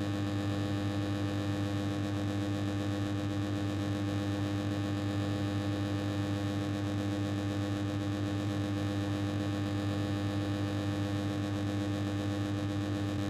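Old, faulty machine of the air-conditioner kind running steadily: a loud electrical hum and buzz of several steady tones over a hiss, with a fast flutter in it.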